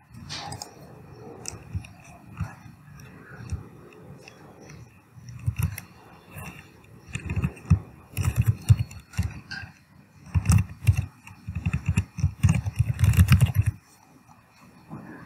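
Computer keyboard typing: bursts of rapid key clicks with dull thumps, picked up through the desk, coming thickest in the second half and stopping shortly before the end.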